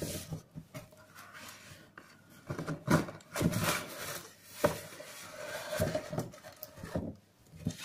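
Cardboard being handled: the flaps of a shipping box folded back and the inner box slid out, with irregular rustling and scraping and a few sharp knocks.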